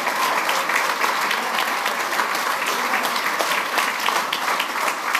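A roomful of people applauding: many hands clapping together, steady and unbroken.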